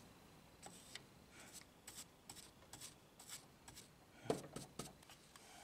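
Faint, quick scratching strokes of a bristle paintbrush scrubbing dirt out of the serrations of a plastic wheel on a Grundig tube radio. Two soft knocks come a little over four seconds in.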